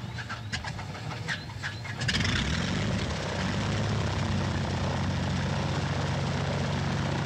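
Propeller aircraft engine: a few irregular sharp clicks, then the engine noise comes up about two seconds in and runs as a steady drone.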